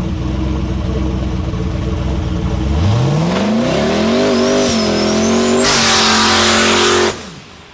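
LS-swapped 4.8-litre turbocharged V8 in a Foxbody Mustang drag car, idling, then revving up steeply about three seconds in and holding uneven high revs with a rising turbo whistle. A loud hiss joins near the end before the sound cuts off abruptly.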